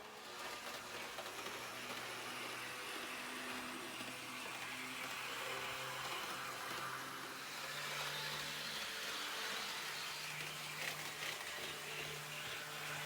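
HO gauge model train running on track: a small electric motor hums steadily over a wash of running noise. The hum steps up in pitch about halfway through, with a few faint clicks near the end.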